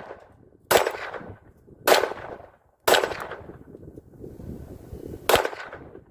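Four single pistol shots, the first three about a second apart and the fourth after a pause of some two and a half seconds, each crack trailing off in a short echo.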